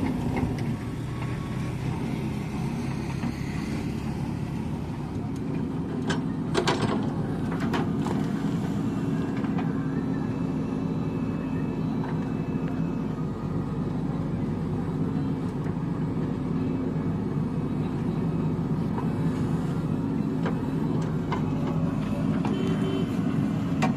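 Heavy diesel engine running steadily, with a few sharp knocks about six to eight seconds in.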